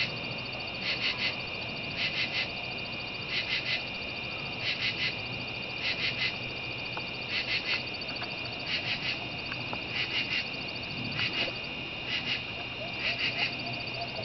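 Frogs calling in a night chorus: a steady high-pitched background chorus, with a nearer frog giving a short call of three or four quick pulses, repeated about every second and a quarter.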